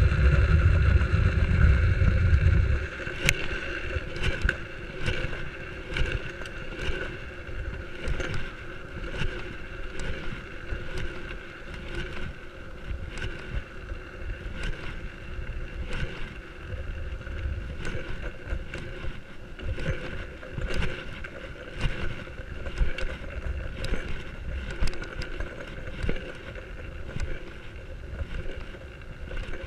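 Drift trike rolling fast downhill on asphalt: a steady rolling rumble from its hard plastic-sleeved wheels, with a faint steady whine, and frequent clicks and rattles as the frame goes over bumps. Heavy wind buffets the microphone for the first three seconds, then drops away.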